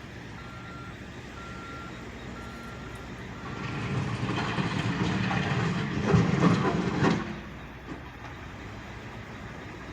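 Backhoe running with its reversing alarm beeping about once a second. From about three and a half seconds in, the machine works harder as it scrapes and smooths gravel, a louder rough stretch that peaks near seven seconds and then drops back to the engine's steady running.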